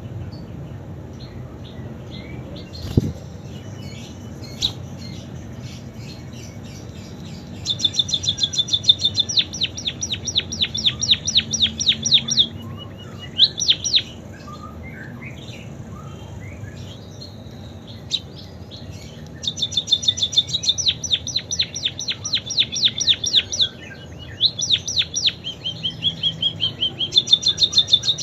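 Caged pipit singing learned canary song: long, fast trills of high repeated notes in several phrases with pauses between, and a few short chirps in the gaps. A low steady hum runs underneath, with a single knock about three seconds in.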